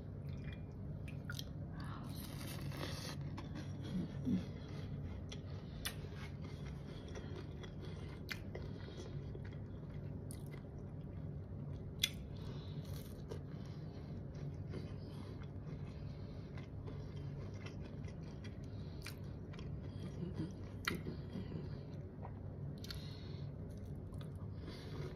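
A person chewing and biting a sugar-coated gummy close to the microphone, with scattered sharp clicks over a steady low hum.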